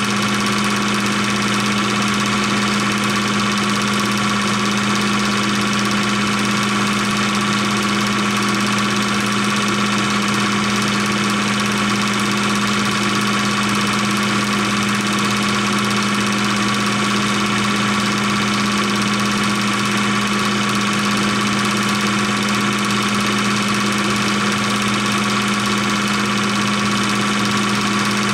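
16mm film projector running: a steady mechanical whir with a constant hum that never changes in pitch or level.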